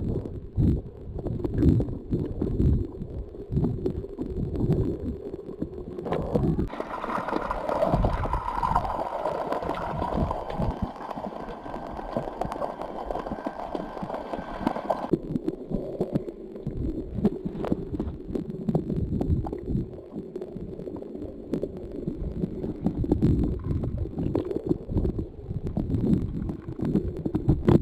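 Muffled sloshing and gurgling of sea water around a camera held in or under the water, mostly a deep rumble, with a brighter, hissier stretch from about six to fifteen seconds in.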